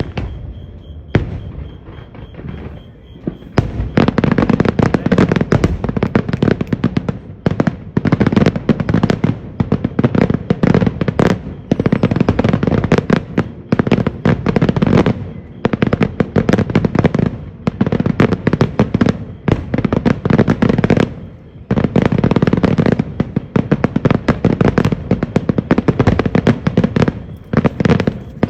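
Fireworks finale: a few scattered bangs, then from a few seconds in a dense, rapid barrage of bangs and crackles that runs almost without a break, with a few short lulls.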